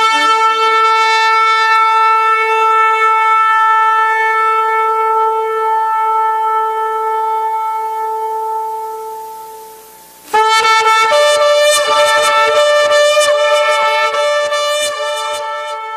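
Shofar (ram's horn) blown: one long held blast that slowly fades out, then about ten seconds in a second blast broken into rapid short notes, stepping up in pitch and fading near the end.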